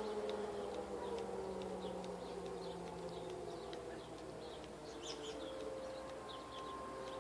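1000T and T-128 outdoor warning sirens sounding together at a test, heard at a distance: their held tones slide a little lower and fade, then a steady tone comes back about five seconds in. Short high bird-like chirps are scattered through it.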